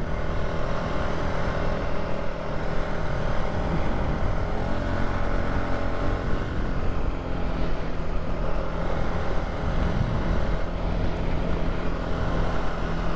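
Polaris ATV engine running steadily while riding along a dirt trail, at an even, unchanging speed.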